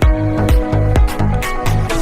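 Electronic dance music with a steady four-on-the-floor kick drum, about two beats a second, under sustained synth notes; the beat drops out near the end.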